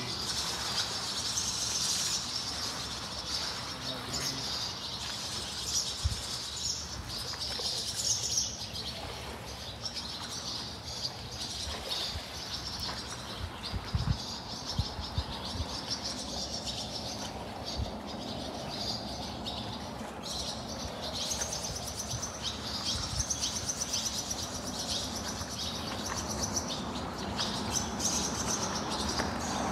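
Many small birds chirping continuously, high-pitched and busy, over a low steady background rush, with a few short low knocks.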